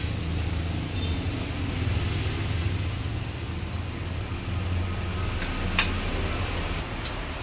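A steady low hum of background noise, with a short clink about six seconds in as a small ceramic sauce bowl is set down on the table, and a fainter click about a second later.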